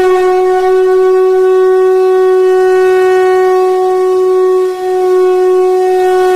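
A wind instrument holds one steady note as a drone, with a brief dip in level about three-quarters of the way through.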